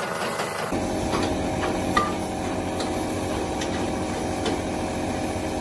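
Steady drone of a running motor under the hiss of an air-fed paint spray gun, with a few sharp knocks scattered through it, the loudest about two seconds in. Less than a second in, the drone turns abruptly fuller and lower.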